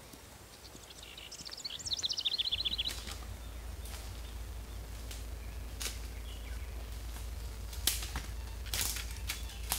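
A songbird's quick trill of notes falling in pitch, about a second in and lasting a second or two. After it come scattered sharp clicks and knocks every second or so over a low rumble.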